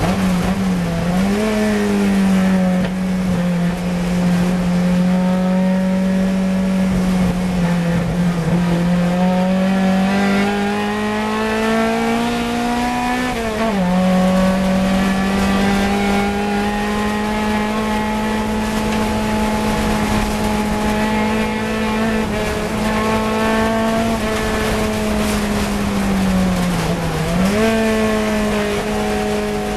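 Fiat 124 Coupe's four-cylinder racing engine heard from inside the car, held at high revs with a steady note that sags and recovers through the corners. The pitch drops sharply about thirteen seconds in, and dips and climbs back near the end.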